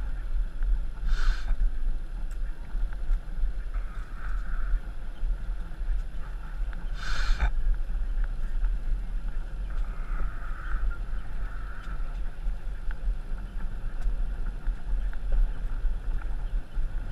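Wind buffeting the microphone on a moving vehicle, a steady low rumble, with two brief higher-pitched bursts about a second in and about seven seconds in.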